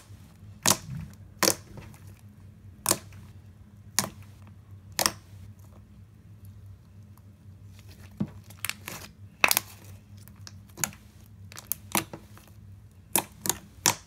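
Thick cream cheese slime being squished, folded and poked by hand, giving irregular sharp clicks and pops, roughly one a second and coming faster near the end.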